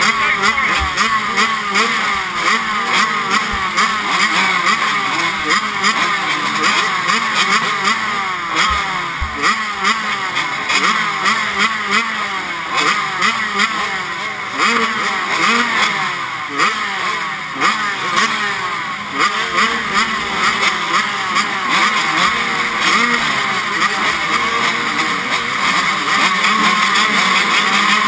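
A row of motocross bikes revving at the start gate, many engines blipped up and down at once in overlapping rising and falling whines, as riders hold their revs waiting for the gate to drop.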